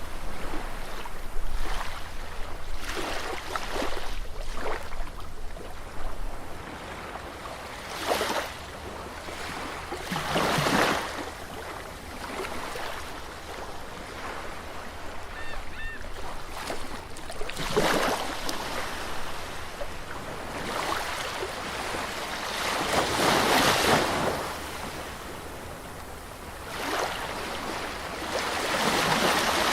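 Sea waves breaking and washing up a beach: a steady hiss of surf with swells that rise and fall every five seconds or so, the biggest near the middle and towards the end.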